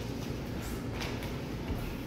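Faint scuffs and rustles of two men grappling barefoot on gym mats, a few soft brushes of noise over a steady low hum.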